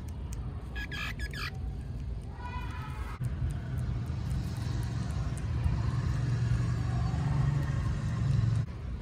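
Two short squeaky calls about one and two and a half seconds in, then a steady low rumble that stops suddenly near the end.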